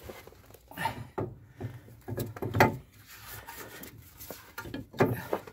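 A cast-iron brake disc knocking and scraping against the front wheel hub as it is offered up and slid into place: a handful of separate clunks, the loudest about two and a half seconds in and another near the end.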